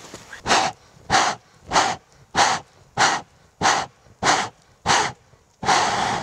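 A person blowing hard into a burning log torch (Swedish torch) to fan its embers: eight short, forceful breaths about 0.6 s apart, then one longer blow near the end.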